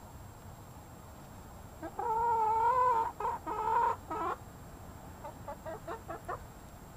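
Hen calling: a long, wavering note about two seconds in that breaks into a few shorter notes, followed by a run of quick, quieter clucks.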